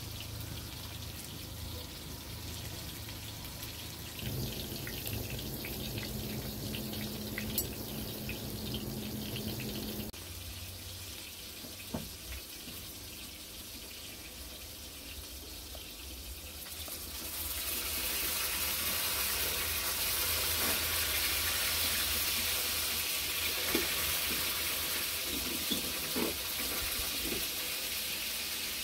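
Flat bread frying in oil in a wide pan over a wood fire: a steady sizzle that grows louder and hissier about two-thirds of the way in, with a few light clicks and knocks.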